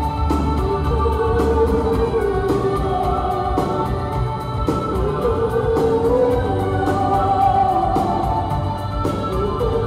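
Rock band playing live: a sung melody held over electric guitars and drums, with a steady beat.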